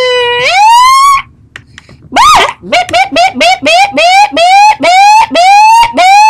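A person imitating a police siren with his voice: a long falling wail ends, then one rising whoop, a pause of about a second, and a quick run of about ten short whoops, nearly three a second, each sliding up in pitch like a yelp siren.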